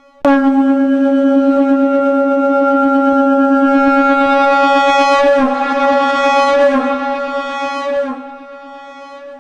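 Conch shell (shankh) blown in one long, loud note pitched at C#. It starts abruptly and holds steady, with a wavering in the upper tones a little past the middle. About eight seconds in it falls to a softer tail and dies away near the end.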